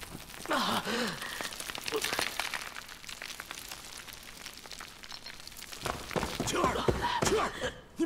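Pained groans and gasps from people knocked to the ground by a blast, over a fine crackle of falling debris. The groaning comes again more strongly in the last two seconds, with a low rumble.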